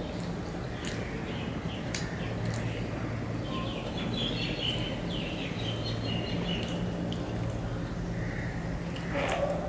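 Close-up eating sounds: fingers squishing rice and fish curry against a steel plate, with small wet mouth clicks and chewing, over a steady low hum.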